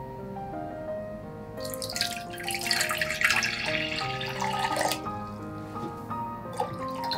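Water poured from a glass measuring cup into an enamel saucepan, a splashing pour lasting about three seconds from just under two seconds in, with a second pour starting near the end, over background music.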